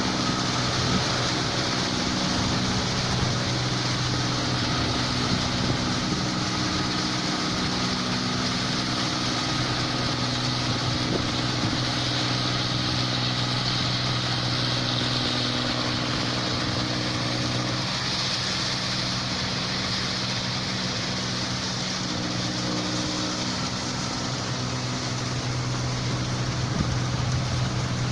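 New Holland 8070 rice combine harvester running steadily: an even engine hum under a broad mechanical rush, with no change in engine speed.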